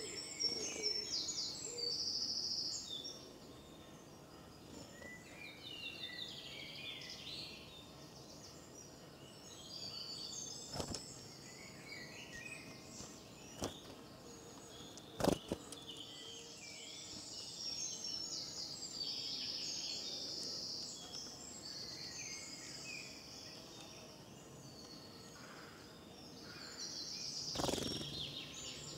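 Spring garden birdsong: several small birds singing and calling at once, high chirps and trills overlapping throughout. A few sharp clicks cut through, the loudest about halfway, and there is a short rustling burst near the end.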